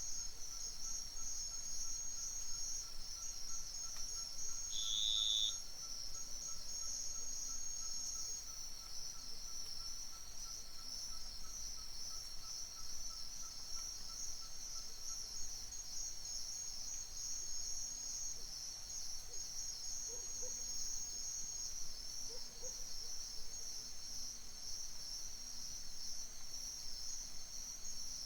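Dense chorus of crickets and other insects, a steady high pulsing trill. A single short, clear bird note sounds about five seconds in.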